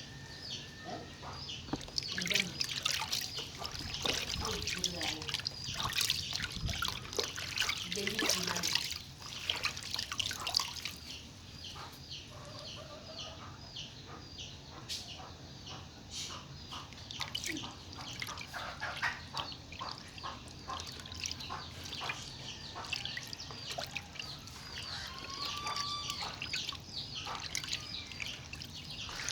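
Water trickling and dripping in a cooking pot of cocoyam (kontomire) leaves, with many small, irregular clicks and splashes.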